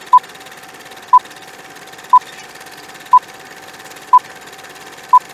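Film-leader countdown sound effect: a short beep about once a second, six times, all at one pitch. Under the beeps runs a steady, much quieter hiss.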